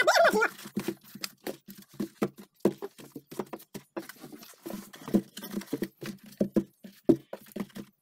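Husked-on green corn ears being laid in rows inside a freezer: husks rustling and ears knocking lightly against each other and the freezer walls in a string of short, irregular taps. A brief vocal sound at the very start.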